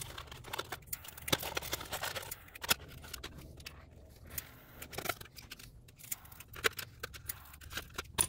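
Scattered light clicks, taps and scrapes of hard plastic being handled: a shifter indicator bezel worked with a small butane torch lighter to melt and pop its plastic welds.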